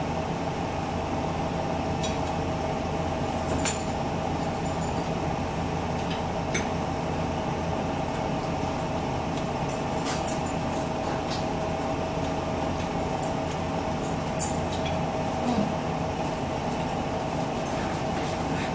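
Forks clinking and scraping on plates during a meal, a few short sharp clinks scattered through, over a steady mechanical hum.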